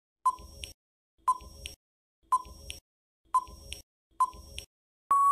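Countdown timer sound effect: five short electronic beeps about a second apart, then a longer steady beep near the end as the countdown runs out.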